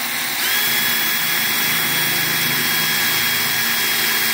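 Power drill running at a steady, even speed, drilling a speaker hole into a Harley-Davidson saddlebag. It gives a continuous high whine that settles to its full pitch about half a second in.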